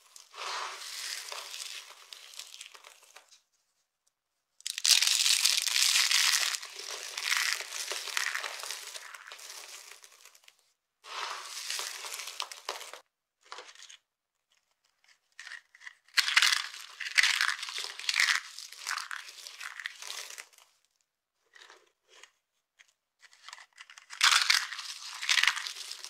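Dry soap shavings and brittle soap flakes being crushed and crumbled between the fingers: crisp crackling crunches in bursts of a few seconds, with short silent pauses between handfuls. The loudest burst comes about five seconds in.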